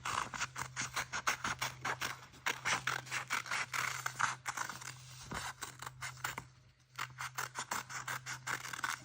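Scissors snipping through folded paper, short sharp cuts a few a second, with a brief pause about two-thirds of the way through.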